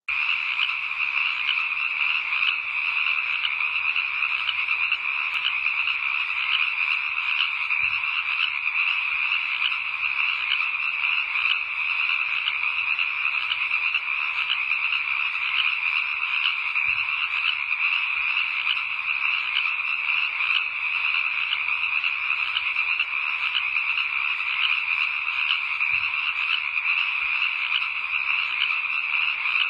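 A steady, dense chorus of many frogs calling at once, without pause.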